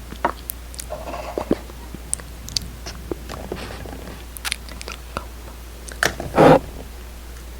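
Close-miked wet lip and mouth sounds: scattered small lip clicks and smacks, with one louder, longer smack about six and a half seconds in.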